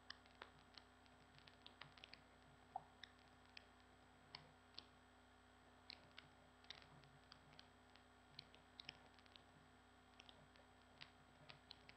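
Faint, irregular clicking at a computer: sharp single clicks, sometimes in quick runs of two or three, over a low steady hum.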